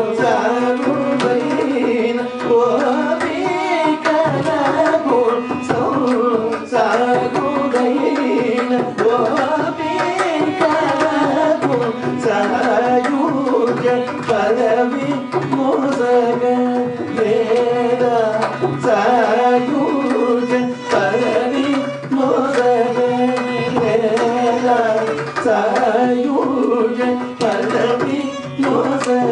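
Carnatic vocal singing in the raga Choornikavinodini, with a violin shadowing the voice and mridangam strokes keeping Adi tala, over a steady drone.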